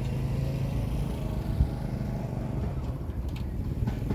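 Steady low rumble of outdoor background noise, with a single short thump about one and a half seconds in.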